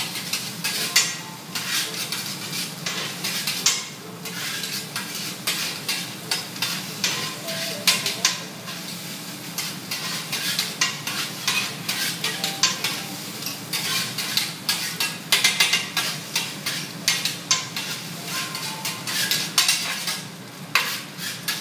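Metal spatulas scraping and clacking on a steel teppanyaki griddle as fried rice with egg and vegetables is turned and chopped, with many quick strokes over a steady sizzle of the rice frying on the hot plate.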